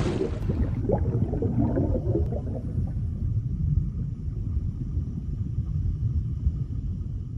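Underwater sound effect: a deep steady rumble with bubbling gurgles in the first two or three seconds, slowly fading.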